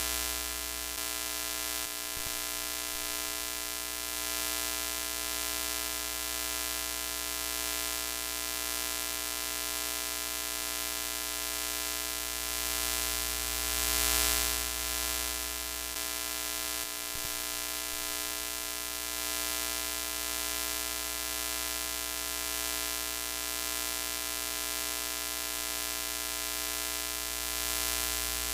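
Broken-TV sound effect: a steady electric buzz with many tones, under a hiss of static that swells louder briefly about halfway through.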